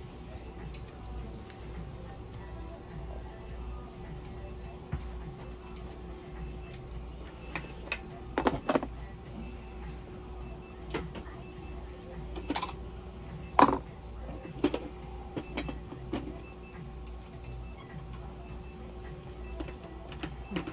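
Steady electrical hum with faint regular pips, over which nail clippers snip a cat's claws in a few sharp clicks, about eight, twelve and fourteen seconds in, the last one loudest.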